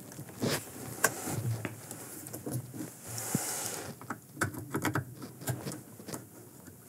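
Wire harness connectors being pushed back onto a washer drain pump's terminals by hand: a scatter of small clicks and handling noises, with a short rustle about three seconds in.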